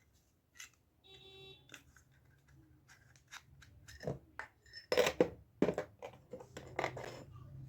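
Plastic clicks and scrapes as the opened casing of a small wireless Bluetooth speaker is handled, with a brief faint squeak about a second in and a cluster of sharper clicks in the second half.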